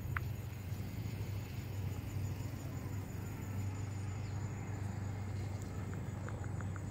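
Calico cat purring steadily with a low rumble while being petted close to the microphone. Near the end, a quick run of short high chirps.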